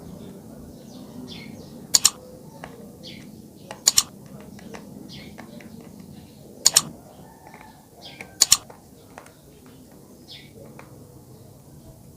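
Four sharp double clicks, about two seconds apart, from electric-kettle parts being handled, with lighter clicks and faint bird chirps in the background.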